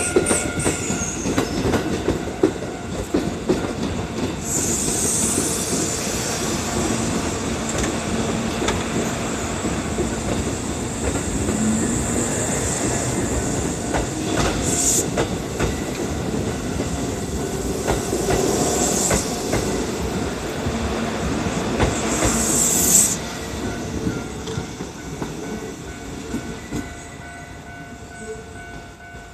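Kintetsu electric train passing close by at a level crossing, wheels clattering over the rail joints, with several brief high wheel squeals; the sound fades over the last few seconds as the train moves away.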